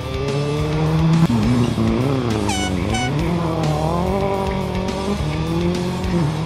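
A rally car's engine revving hard as it passes, rising in pitch and dropping back at each gear change, with a rock music track playing over it.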